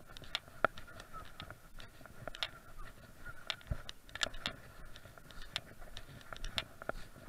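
Footsteps of someone walking along a grassy, wet riverside path: scattered irregular taps and crunches over a steady background hum.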